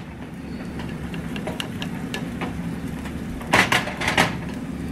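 Pancake batter sizzling steadily in hot oil in a small non-stick frying pan, with a couple of knocks about three and a half seconds in as a plastic spatula meets the pan.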